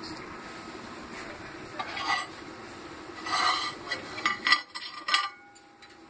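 A metal fidget spinner clinking and scraping against a microwave's glass turntable as it is picked up with an oven mitt: a few scattered clinks, the sharpest between four and five seconds in.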